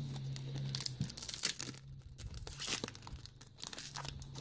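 Foil wrapper of a 2017 Select Footy Stars trading card pack being torn open and crinkled by hand, in irregular crackles.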